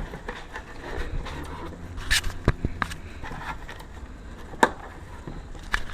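A few sharp plastic clicks and scraping handling noises as the tab on a tail light's wiring connector is worked loose, over a low steady rumble.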